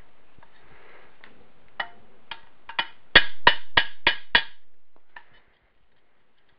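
A few light metal clicks, then five quick, evenly spaced hammer taps with a metallic ring, about three a second, as a roll pin is driven into a shifter rail in a Wheel Horse transmission case.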